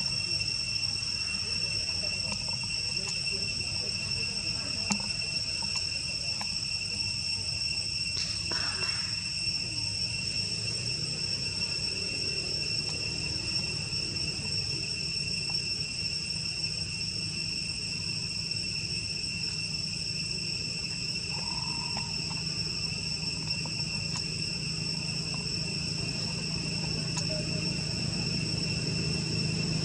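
Insects droning steadily at a high pitch, one unbroken two-toned chorus, with a brief call about eight seconds in.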